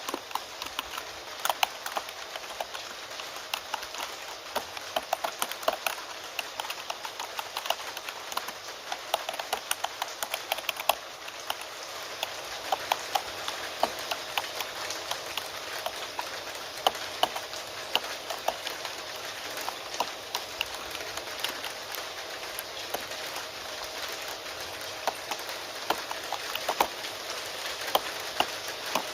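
Computer keyboard typing, a fast, uneven run of key clicks, over the steady hiss of rain.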